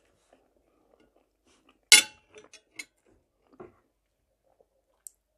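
A metal fork clinks sharply against a plate about two seconds in, followed by a few light ticks and a soft knock, with faint chewing before it.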